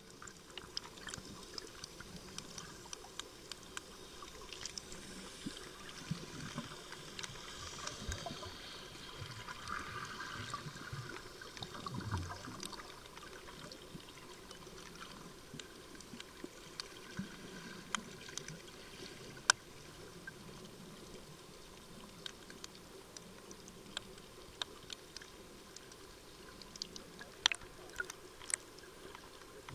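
Faint underwater ambience of the sea: a soft wash of water noise with scattered sharp clicks and pops, and a few sharper ticks in the last third.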